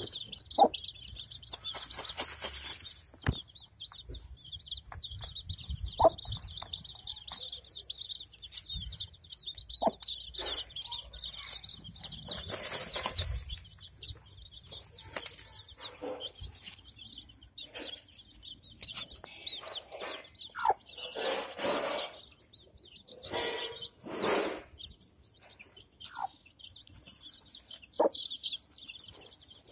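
Chicks peeping in a rapid high chatter, with a hen's short low clucks now and then and several bursts of wing flapping and scattering dirt as the hen dust-bathes.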